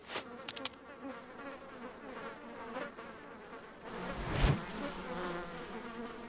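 Cartoon fly buzzing around, its drone wavering in pitch and swelling louder as it passes close about four and a half seconds in. A few light clicks just at the start.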